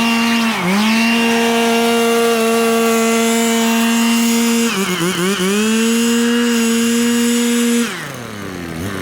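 Small handheld power tool engine held at high revs. Its pitch sags briefly about half a second in and again for about half a second near the middle as it takes load, then drops to a low idle near the end.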